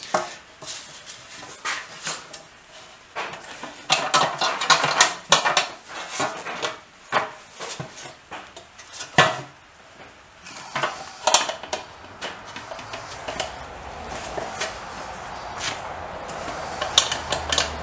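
Tucking fork clicking and clanking against the edge of a thin metal sheet as the edge is twisted into tucks to shrink it: irregular clusters of sharp metallic clicks and rattles. A steady hiss builds over the last few seconds.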